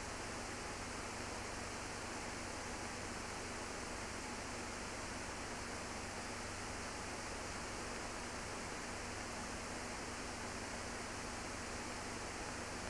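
Steady hiss with a faint low hum and nothing else heard: the background noise of an archival film transfer.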